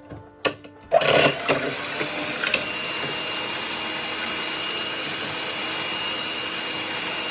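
Electric hand mixer with twin beaters switched on after a click or two, then running steadily about a second in as it beats eggs and milk in a bowl, with a faint steady whine.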